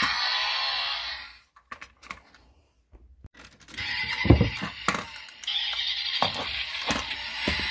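Toy car's pull-back motor whirring as the car is dragged across a wooden floor, stopping about a second and a half in. After a short silence come sharp plastic clicks and knocks as die-cast toy cars are handled and pressed, over a steady hiss.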